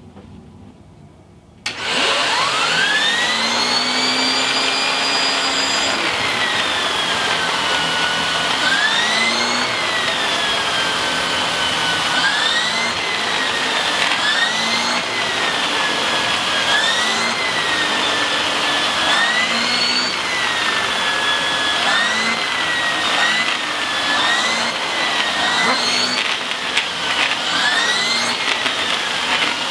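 Handheld vacuum cleaner switched on, its motor whine climbing in pitch as it spins up. It then runs while vacuuming a bed sheet, the whine dipping and rising again every second or two.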